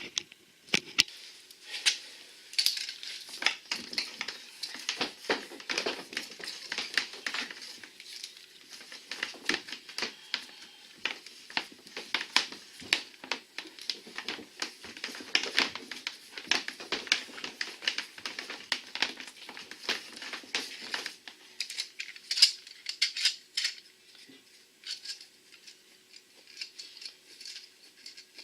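Transducer cable and plastic mounting parts being handled and fed through a scupper hole in a plastic kayak hull: a long run of irregular clicks, taps and rattles that thins out to occasional ticks after about twenty seconds.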